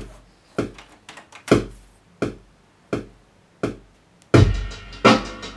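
Sampled hip-hop drum pattern played back on an Akai MPC2000: sparse, unevenly spaced kick and snare hits, with the second kick left unquantized for a natural swing. About four seconds in, a denser, fuller beat with a deep low end comes in.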